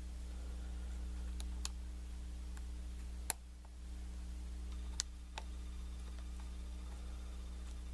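Steel lock pick clicking against the pin stacks of a Kwikset knob cylinder: a handful of scattered light ticks, the sharpest a little past three seconds in and another about five seconds in, over a steady low hum.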